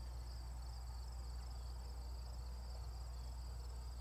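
Field insects, crickets among them, chirring high in a steady pulsing rhythm over a constant low rumble.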